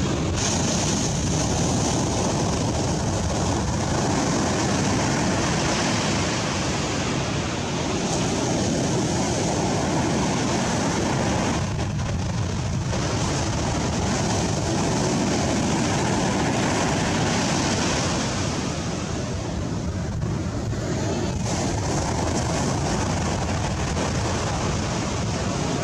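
Steady rushing noise of surf breaking on a beach, mixed with wind.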